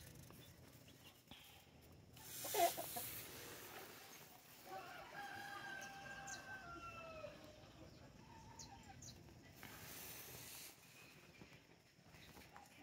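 Rooster crowing once: one long call starting about five seconds in that bends down in pitch at its end. A brief loud burst of noise comes about two and a half seconds in, and small birds chirp faintly.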